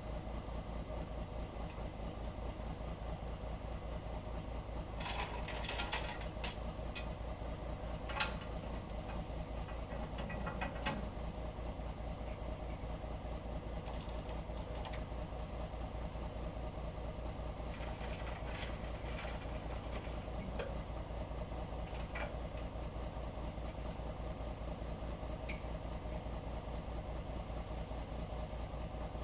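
Diesel engine of a Nissan Diesel (UD) truck idling steadily with an even low throb. A few light clicks and knocks sound over it, the sharpest near the end.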